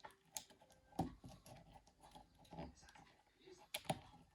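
Light, scattered clicks and taps of small plastic and metal parts of a Nokia 9300i communicator being handled and pressed into place by hand while its antenna coax cable is routed. The loudest clicks come about a second in and just before the end.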